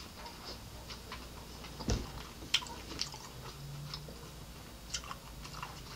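A person chewing food close to the microphone, with scattered wet mouth clicks and smacks and a brief low hum about halfway through.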